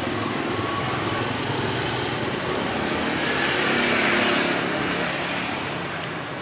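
Street traffic of small motorcycle engines, one growing louder to a peak about four seconds in and then fading as it passes.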